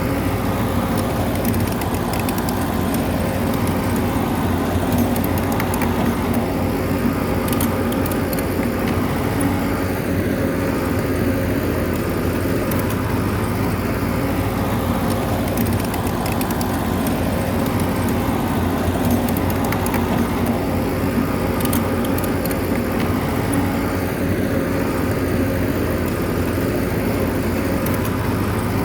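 Bulldozer's diesel engine running steadily, with a few brief clicks.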